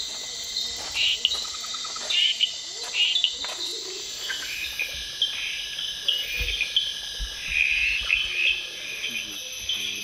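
Tropical rainforest night chorus of insects and frogs: steady high-pitched trilling layered with many short, repeated chirping calls, and a thin steady whine that sets in about halfway through.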